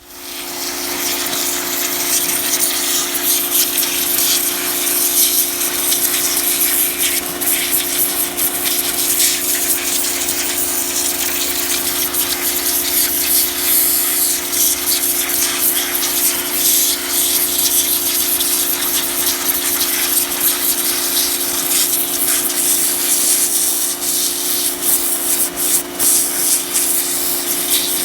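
A small 1700 PSI pressure washer running and spraying, a steady pump hum under the hiss of the water jet stripping hulls off black walnuts; it starts suddenly and runs on without a break. The owner finds this washer too weak to cut through the hulls.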